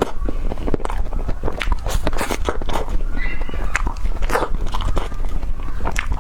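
Crunchy ice cream being bitten and chewed close to the microphone: a quick, irregular run of crisp cracks and crunches.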